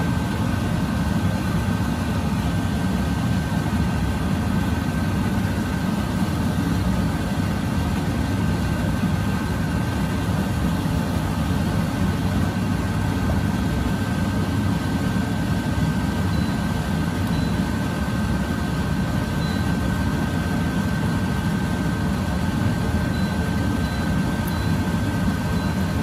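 Steady low rumbling roar with a constant thin whine above it, holding level throughout, typical of a kitchen extractor fan running over the stove.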